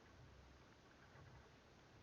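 Near silence: a faint hiss with soft low rumbles.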